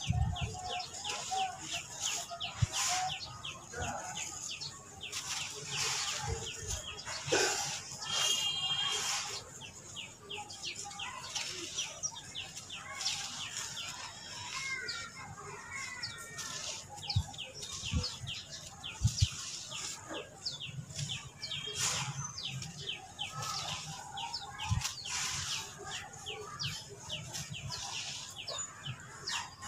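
Small charcoal chunks crushed and crumbled between bare fingers onto a powdery heap, a rapid run of crisp little crunches and gritty crackles. Birds chirp now and then in the background.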